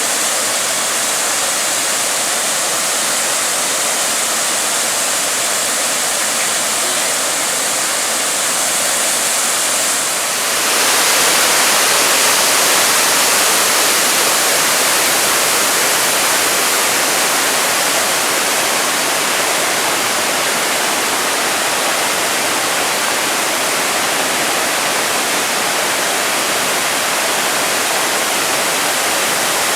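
A raging waterfall rushing in a steady, loud roar of falling water. About ten seconds in the sound changes abruptly, turning brighter and slightly louder.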